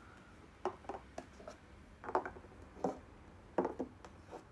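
Small crystals being picked up and set down on a tabletop: a series of light, sharp clicks and knocks at irregular intervals.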